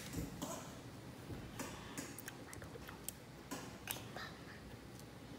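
Faint, scattered small clicks of fingers picking cracked shell off an egg.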